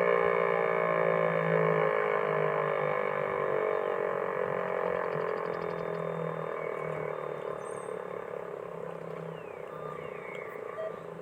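Federal Signal Thunderbolt 1000T outdoor warning siren winding down, its tone slowly falling in pitch and fading, over a steady low hum.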